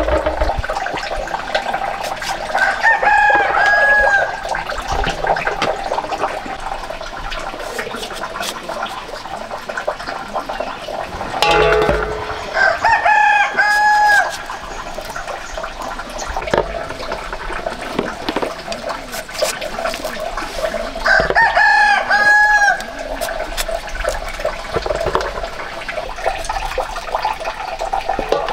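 A rooster crowing three times, about nine seconds apart, each crow a little over a second long.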